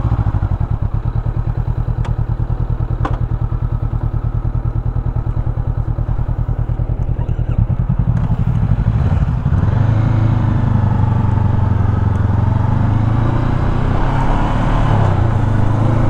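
A parallel-twin sport motorcycle engine running at idle with even, rapid firing pulses. About nine seconds in the note rises and smooths into a steadier, slightly louder hum.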